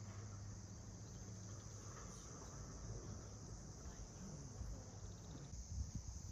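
A steady, high-pitched chorus of insects chirring without a break, over a low hum, with a few low thumps near the end.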